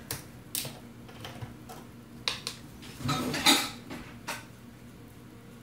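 Metal measuring spoons and a bottle being handled on a kitchen counter: a scattering of small clinks and knocks, busiest and loudest about three and a half seconds in.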